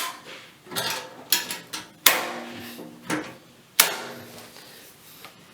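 Craftsman metal tool chest being shut: a few light knocks and clicks, then two sharp metal clanks about two and nearly four seconds in, each leaving the sheet-steel box ringing briefly.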